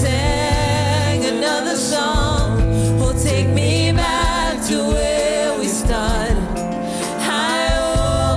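Gospel worship song: a lead singer holding wavering notes with vibrato and melodic runs, over band accompaniment with a low bass.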